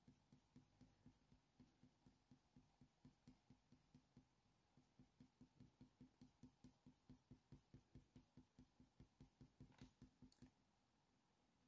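Near silence with faint, quick scratches of a Faber-Castell Polychromos coloured pencil (Cold Grey IV) flicking short fur strokes on hot-press watercolour paper. The strokes are sparse at first, then come about four a second from about halfway through.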